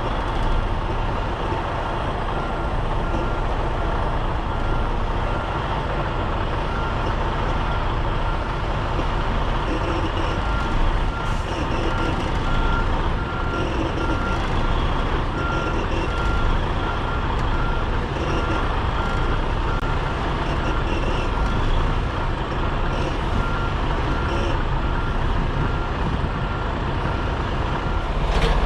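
Semi-truck engine running at low speed while reversing into a loading dock, with a backup alarm beeping steadily. The beeping starts about two seconds in and stops shortly before the end.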